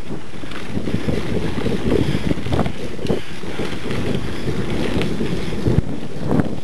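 Wind noise on the microphone and a low rumble from a mountain bike rolling over a dirt double-track, with frequent short knocks as it jolts over bumps.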